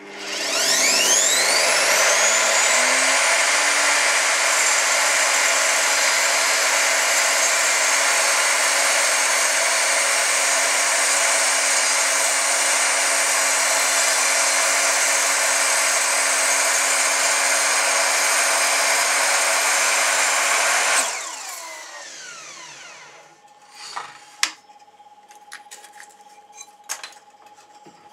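Electric miter saw starting with a rising whine, running steadily for about twenty seconds while the blade is lowered through a small wooden block, then switched off and winding down. A few light knocks follow near the end.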